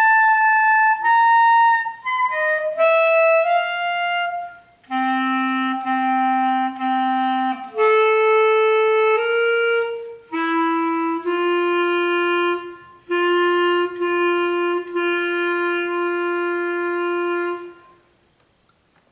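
Solo clarinet playing a slow passage of single sustained notes, with a low note sounded three times in a row partway through. It ends on a long held note that is re-tongued a few times and stops about a second before the end.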